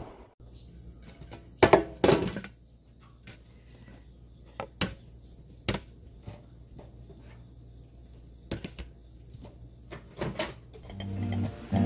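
Dishes and a plastic container set down on a round metal tray. Two louder knocks come a little under two seconds in, then lighter taps and clicks are spaced through the rest, over a faint steady hum.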